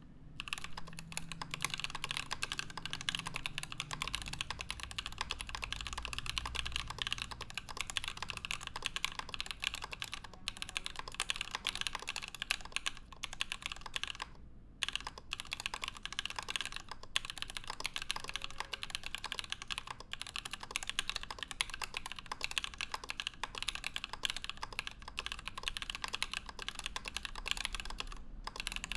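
Continuous fast typing on an h40io Amano R2 custom mechanical keyboard: lubed KTT Lauriel linear switches in a top-mounted aluminium plate, with GMK Dots keycaps. It gives a steady stream of keystroke clacks, with short pauses about halfway through and near the end.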